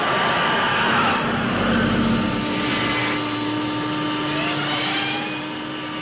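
The DeLorean time machine's film sound: engine running and tires spinning on the pavement, with a steady mechanical whine joined by a lower steady hum about halfway through.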